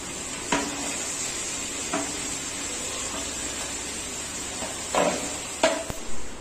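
Steady sizzle of green chillies and onions frying in oil in a non-stick pan as leafy greens are scraped in off a plate with a wooden spoon. Four sharp knocks of the wooden spoon against the plate and pan.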